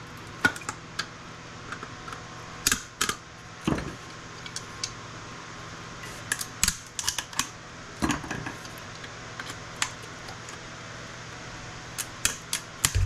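Irregular sharp clicks and clinks of small metal parts and hand tools as components are pried off circuit boards and dropped aside, over a faint steady hum, with a heavier knock at the very end.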